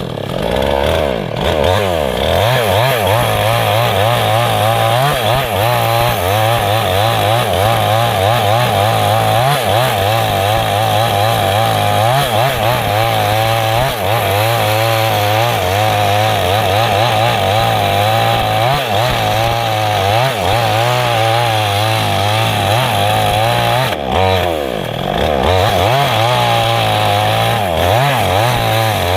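Stihl two-stroke chainsaw running near full throttle while cutting teak wood, its engine pitch wavering up and down under the load. About three-quarters of the way through it briefly drops in revs, then picks up again.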